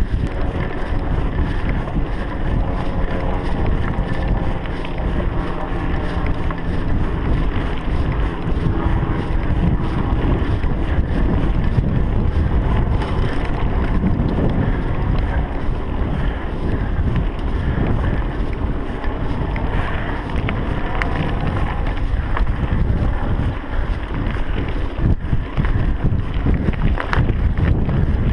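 Wind buffeting a GoPro's microphone while a mountain bike rolls along a bumpy grassy dirt track, with a steady rumble and small knocks from the tyres and bike over the rough ground.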